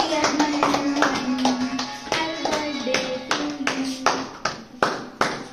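Rhythmic hand clapping, about three claps a second, in time with a slow melody.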